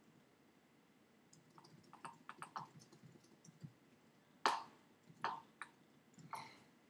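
Faint clicking of computer keys: a quick run of light taps from about a second in to nearly four seconds, then three louder single clicks spaced about a second apart.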